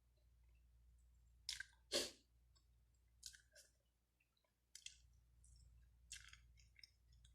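A person chewing food, faint, in a handful of short crackling bursts, the loudest about two seconds in.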